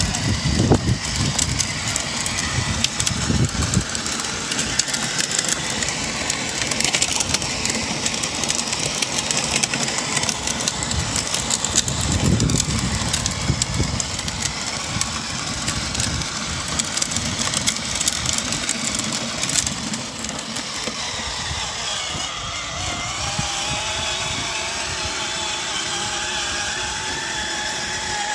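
Battery-powered toy ride-on motorcycle running, its electric motor and gearbox whining steadily while its plastic wheels roll over wet pavement and grass. The whine stands out more clearly in the last several seconds.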